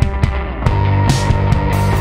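Background rock music with drums keeping a steady beat.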